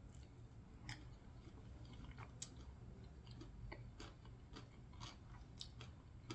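Faint chewing with soft, sharp mouth clicks at irregular intervals, a person eating food close to the microphone.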